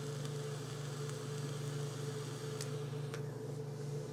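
A long drag on an e-cigarette with a dripping atomizer: a faint airflow hiss, with two light clicks late in the drag, under a steady low electrical hum that is the loudest sound.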